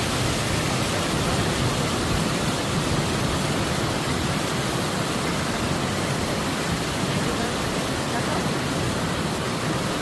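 Fast-flowing water rushing over small cascades and mossy rocks, a steady, even rush.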